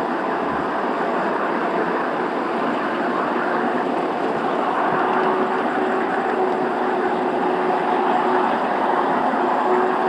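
Miniature ride-on railway train running along its track, with a steady rolling noise from the wheels on the rails. A faint steady whine comes in about halfway through and again near the end.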